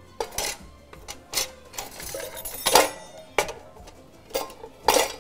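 Dishes and kitchen utensils being handled: about six separate clinks and knocks, the loudest a little past the middle.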